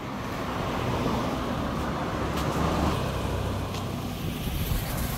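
Road traffic: a motor vehicle's engine running close by, with tyre and road noise, swelling and easing a little as it passes.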